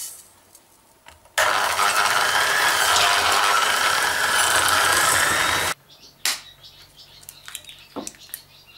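Handheld electric mixer running in a stainless steel pot, beating lard butter with sugar for shortcrust dough. It switches on about a second and a half in and cuts off about four seconds later. A few light knocks follow as an egg shell is tapped with a knife over a glass cup.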